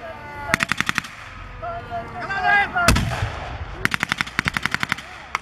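Bursts of automatic gunfire from blank-firing weapons: a short rapid burst, a single louder shot about three seconds in, then a longer rapid burst near the end.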